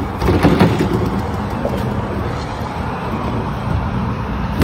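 Foosball rods being slid and spun through freshly greased insert bearings, with light clatter in the first second, over a steady low rumble.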